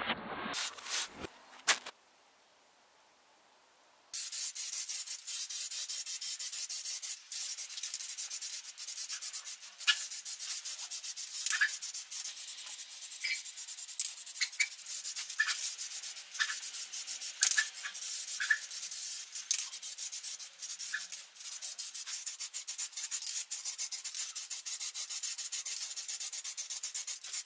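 Steady hiss of paint being sprayed onto the toy's metal parts, with scattered small ticks. It starts about four seconds in, after a few clicks and a short silence.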